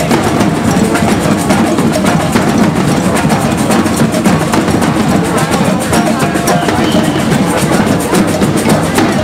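Street drum corps playing a loud, fast, unbroken drum rhythm, with many strikes a second.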